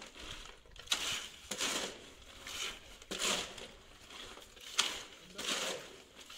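Shovel and trowels scraping through and turning gritty wet concrete on a metal mixing tray: repeated crunching scrapes about once a second, with a couple of sharper clinks of metal on the tray.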